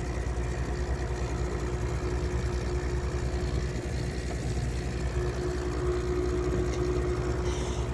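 2003 GE window air conditioner (LG-built) running with its rotary compressor and fan on, a steady hum with a fast buzzing rattle underneath. The unit shakes hard, which the owner puts down to worn compressor mounts.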